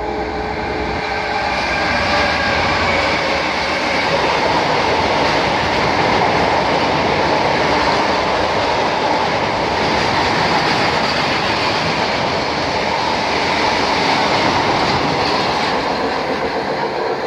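A diesel-hauled freight train of loaded steel-coil wagons passing close by. The locomotive's engine is heard for the first few seconds, then a steady rush of wheels on rail with clickety-clack from the wagons.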